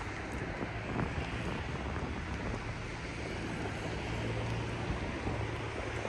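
Outdoor wind rushing on the microphone, with a steady low hum underneath that grows a little stronger in the second half, and a couple of faint footsteps near the start.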